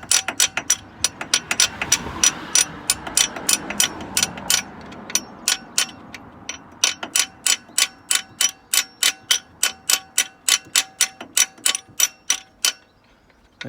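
Rapid light hammer taps on a seized split bush in a Mercedes SLK R170's alternator mounting casting, about four a second, metal ringing with each strike, to drive the bush out.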